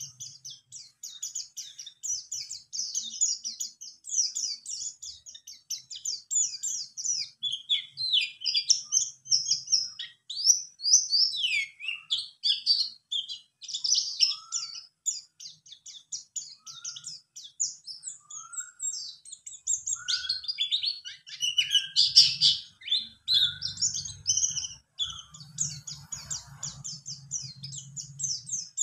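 A white-eye (pleci buxtoni), a raw wild-caught bird ten days in the cage, singing a long run of rapid, high twittering with barely a pause and a few lower sliding notes mixed in: the full 'wiksar' song of a bird already settling in.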